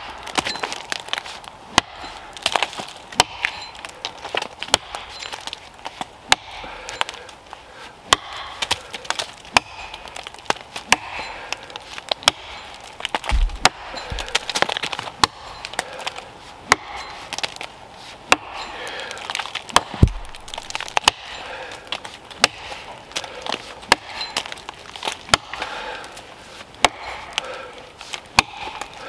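Rinaldi Calabria axe chopping into a fallen tree trunk while bucking it, repeated sharp strikes in a steady rhythm, a little more often than once a second.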